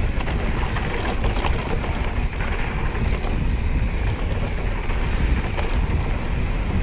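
Wind buffeting the microphone over the crunch of knobby tyres rolling on a dirt trail, with short clicks and rattles from a Specialized Stumpjumper mountain bike being ridden over the bumps.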